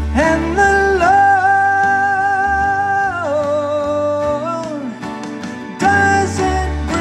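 A man singing a long held note over a strummed acoustic guitar. The note steps down in pitch about three seconds in and breaks off a second later, and the singing resumes about six seconds in.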